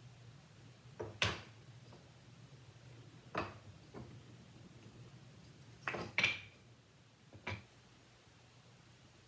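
Objects being handled and set down: a series of separate knocks and clinks, some in quick pairs. Two near the end ring briefly like metal. A low steady hum runs underneath.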